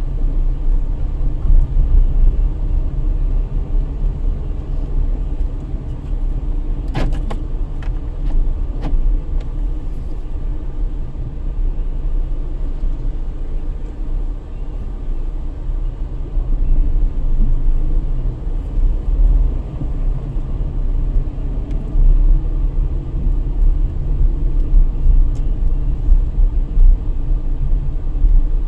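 Steady low rumble of a car's engine and tyres on the road, heard from inside the cabin while driving. A few short clicks or knocks sound about seven to ten seconds in.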